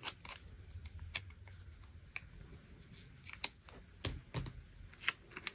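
Quiet, irregular snips of scissors, their blades sticky with adhesive, cutting a paper floral sticker, with small clicks and rustles as the cut piece is handled over the page.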